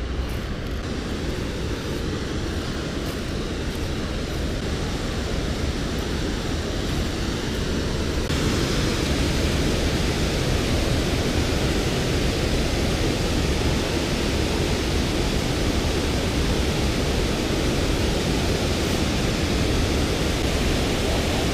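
Steady rush of water pouring over a low concrete dam spillway, becoming louder and brighter about eight seconds in.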